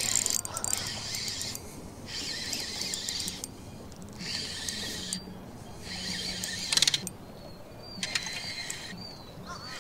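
Fishing reel being cranked in spurts, its gears whirring for about a second at a time with short pauses, about six times, as a big swimbait is reeled in. A sharp click comes near the middle.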